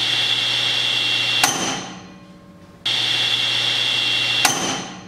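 SawStop table saw running at full speed with a steady high whine, then a sharp bang as the brake cartridge fires into the blade on contact with skin, and the sound falls away as the blade stops. The same brake firing is heard twice.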